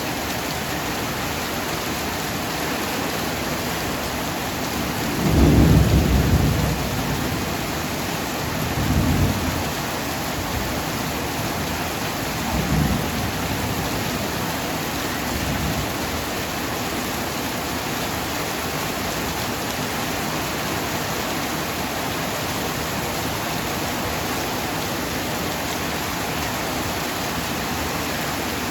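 Heavy rain falling steadily, with a low thunder rumble swelling about five seconds in, the loudest part, followed by three fainter rolls of thunder over the next ten seconds.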